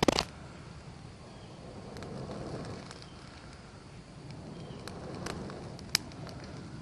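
Small fire of damp tinder and twigs crackling, with a sharp crack at the start, a second about six seconds in, and a few faint pops between.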